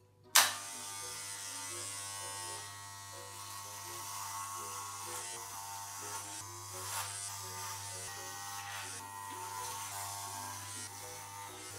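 Corded electric hair clippers switch on with a sharp click about half a second in, then run with a steady buzzing hum as they are pushed through hair on the scalp.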